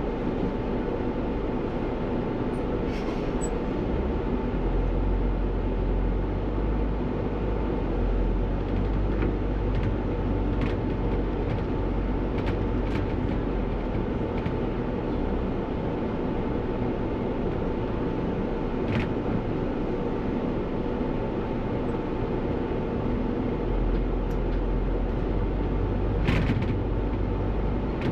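Bus running on the road, heard from the driver's cab: steady engine and road noise with a faint steady whine, and a few short clicks or knocks.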